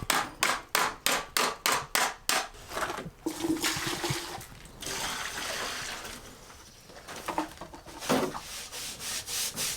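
Rhythmic back-and-forth scraping strokes, about three a second, from a hand tool worked against a rough surface. They stop about three seconds in and start again briefly near the end.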